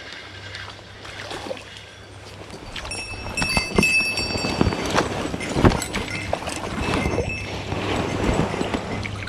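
A hooked white-spotted char splashing and thrashing at the surface of the river while being played in, the water sloshing and gurgling; the splashing grows louder about three seconds in.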